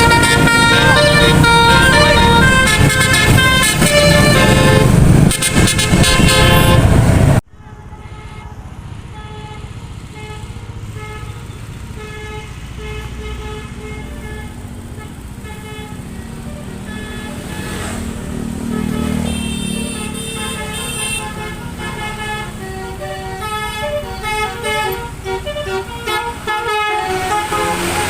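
Bus 'telolet' musical horn playing a quick run of changing notes, loud at first. About seven seconds in the level drops sharply, and the horn notes go on fainter over a bus engine running underneath.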